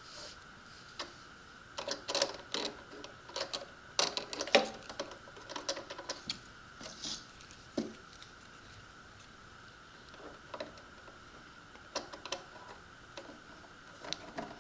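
Small hard plastic parts clicking and tapping irregularly as a plastic steering nozzle is handled and fitted onto an RC jet boat's jet pump, with a faint steady high hum underneath.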